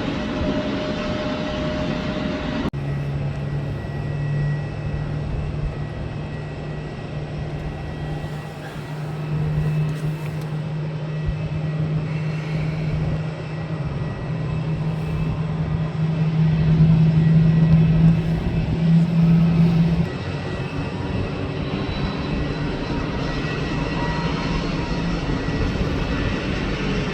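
Jet airliner engines running: a steady low drone of two close tones, starting abruptly a few seconds in, growing louder, then cutting off suddenly about twenty seconds in, with a broad rumble underneath throughout.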